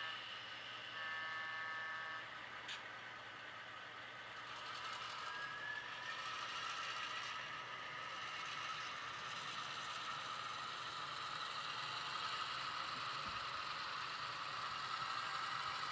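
HO scale model diesel locomotives running along the layout track. There is a short horn blast about a second in, then a faint steady running noise with light mechanical clatter and rattle that grows slightly louder toward the end.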